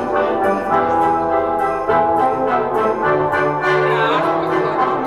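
Orchestral music led by brass, playing a lively tune with a steady beat.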